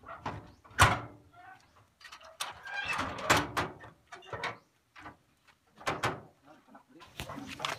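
A run of knocks and clanks from handling the cart's metal rear gate and the load on its bed, with the loudest bang about a second in.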